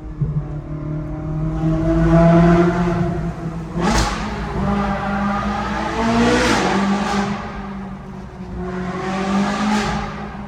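High-revving sports car engine pulling hard on a mountain road, its pitch climbing and falling as it goes through the revs. Sharp cracks come about four seconds in, twice around six and a half to seven seconds, and again near ten seconds.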